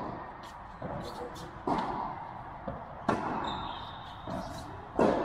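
Tennis rally on an indoor court: sharp racket hits on the ball and ball bounces every one to two seconds, echoing in the large hall, with the loudest hit near the end.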